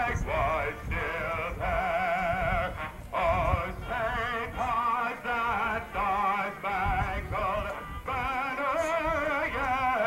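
Music with a singing voice holding long notes with a strong vibrato, in phrases of about a second each.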